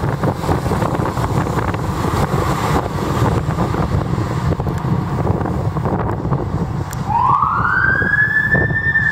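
Fire engine driving away, with a steady low rumble of engine and road noise. About seven seconds in, its siren gives one wail that rises quickly in pitch, holds, and then slowly falls.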